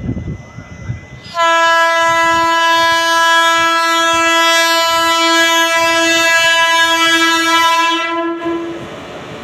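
WAG-12 electric locomotive's horn sounding one long, steady blast of about seven seconds as the locomotive approaches. It starts about a second and a half in and stops near the end, leaving the rumble of the oncoming train.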